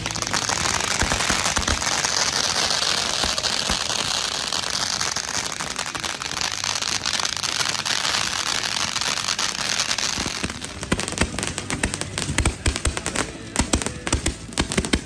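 Fireworks going off at close range: a dense crackling hiss for about ten seconds, then a quick string of separate sharp pops and bangs.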